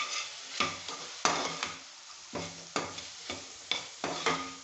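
A perforated steel ladle stirs and scrapes chopped tomatoes and onions around an aluminium pan in short strokes, about two to three a second. Under the strokes is the faint sizzle of the vegetables sautéing in oil.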